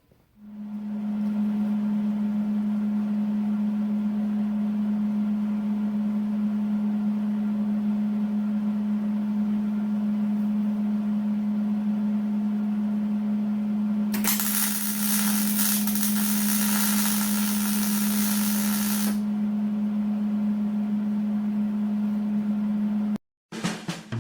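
Electric power tool motor running at a steady speed with an even hum. About fourteen seconds in, a high hiss joins it for about five seconds, as when the tool works the metal. The motor cuts off abruptly near the end.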